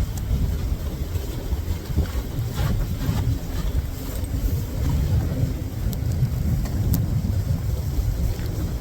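Wind buffeting the microphone, a rough, uneven low rumble, with a couple of faint clicks near the end.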